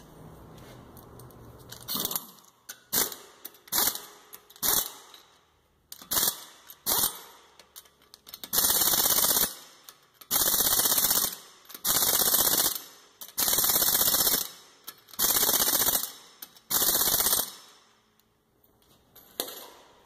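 Impact wrench driving lug nuts through a torque stick: several short blips, then six bursts of rapid hammering about a second long each as the nuts are run down to about 100 foot-pounds.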